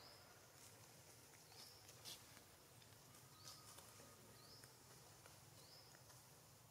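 Near silence: faint outdoor ambience with a short high chirp repeating every second or so, and a few faint clicks around two seconds in.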